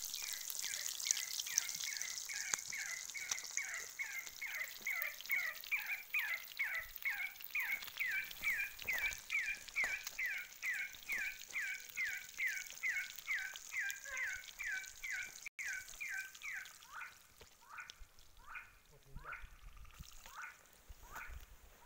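An animal repeating a short, falling call note about three times a second, which turns slower and uneven after about 17 seconds. A high sizzling hiss in the first few seconds comes from fish frying in oil in a pan over a wood fire.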